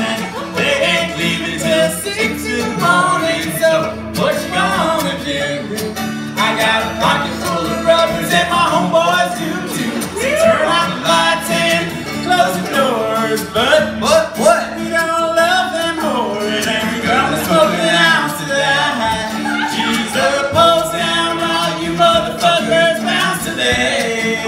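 Live acoustic music: two men singing to a strummed banjo ukulele and acoustic guitar.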